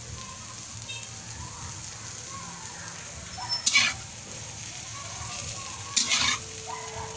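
Egg with malunggay leaves sizzling steadily in oil in a pan. A spatula scrapes against the pan under the egg twice, once about halfway through and again near the end.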